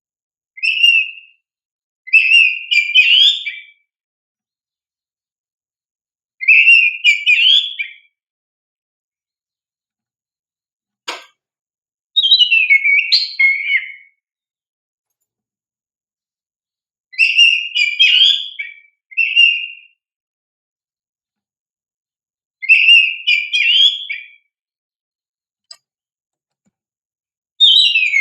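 Oriental magpie-robin (kacer) singing: short phrases of rich whistled notes, each a second or two long, repeated every few seconds with silence in between. A single short click comes near the middle.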